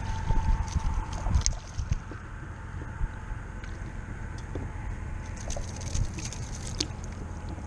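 Wind rumbling on the microphone and water lapping around a fishing kayak, with a few scattered sharp clicks.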